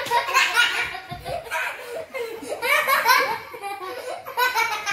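Several young girls laughing hard together, in repeated bursts.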